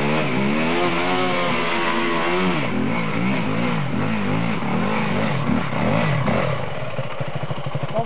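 Off-road motorcycle engines climbing a trail, the throttle opened and closed again and again so the engine note rises and falls, with more than one bike running at once.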